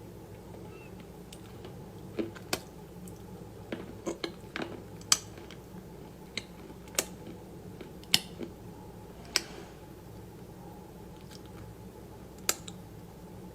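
Close-up eating sounds: a dozen or so sharp, crisp crunches and clicks at irregular intervals, with possible taps of cutlery on a dish, over a steady low hum.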